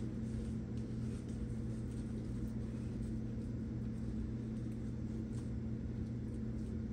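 A steady, unchanging low hum made of several even tones, like a running appliance or electrical hum, with a few faint soft ticks over it.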